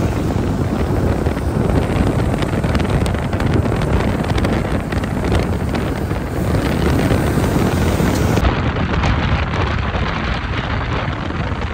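Steady rumble and rush of a car travelling at highway speed, with wind buffeting the microphone.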